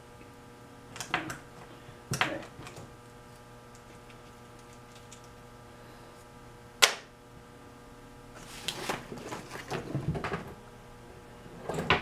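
Plastic connectors and wires of a car wiring harness being handled on a wooden workbench: scattered clicks and knocks, the sharpest about seven seconds in, and a stretch of rustling and knocking near the end. A steady electrical hum runs underneath.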